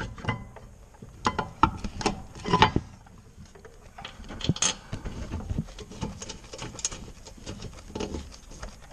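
Irregular metallic clicks, clinks and knocks as a Brembo brake caliper is handled into place on the hub and its mounting bolts are started. The loudest knocks come between about one and three seconds in.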